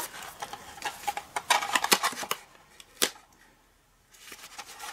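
Thick white cardstock being folded and handled: irregular crackling and rustling, with a cluster of crisp crackles about one and a half seconds in and a single sharp snap about three seconds in.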